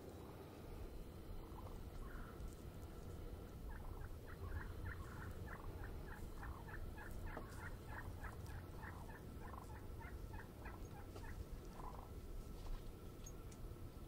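Wild turkey calling: a long run of short, evenly spaced notes, about four a second, starting about four seconds in and lasting some seven seconds, faint over a low steady rumble.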